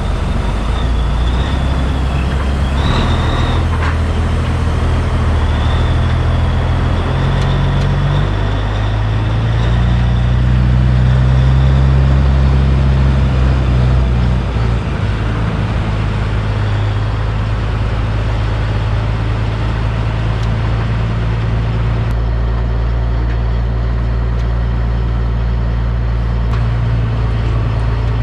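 Diesel engine of a cabover Peterbilt 362 truck running under way. Its note steps up and down several times in the first fifteen seconds, then holds steady.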